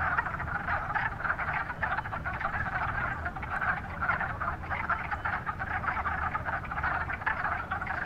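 Breeding chorus of male wood frogs: many short calls overlapping into a continuous din, the males calling to attract females.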